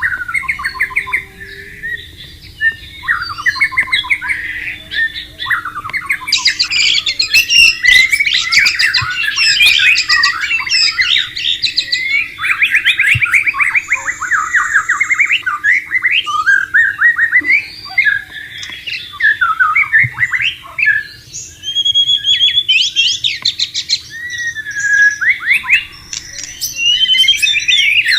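White-rumped shama (murai batu) singing a long, varied song of rapid whistles, trills and harsh notes, with no pause.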